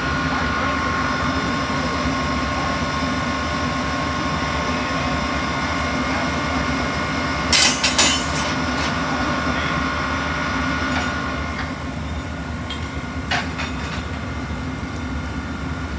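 Amtrak ACS-64 electric locomotive standing with its equipment running: a steady hum with a high, even whine. A few sharp knocks come about halfway through, and the hum fades somewhat near the end.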